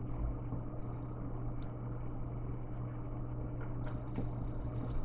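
Steady low electrical hum, with a few faint small clicks as a screwdriver works screws into a laptop's plastic bottom cover.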